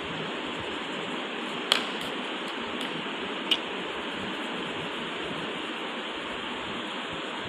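Steady, even background hiss, with two short sharp clicks, one a little under two seconds in and the other about three and a half seconds in.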